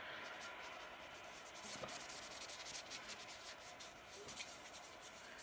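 Faint, steady rushing and fizzing of sea waves washing over rocks, played through a tablet's small speaker.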